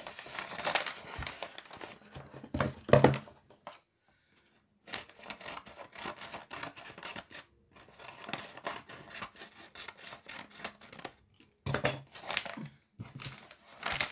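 A paper envelope being handled and cut open with scissors: crinkling and rustling paper with snips of the blades. There are louder crackles about three seconds in and again near the end.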